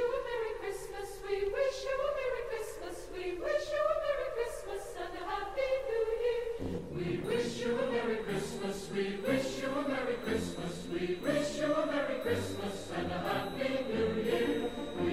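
Music: a choir singing, unaccompanied at first, with a low bass accompaniment coming in about seven seconds in.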